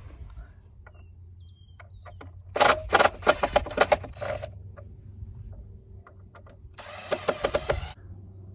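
Cordless power driver run in two short bursts on a bolt through a wooden post, each a quick train of rapid knocking pulses; the bolt does not come free, and the driver's battery is going dead.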